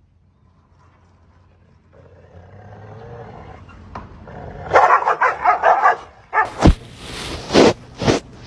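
Dogs growling low, rising in level, then a rapid run of snarling barks and several loud, sharp barks in the last couple of seconds.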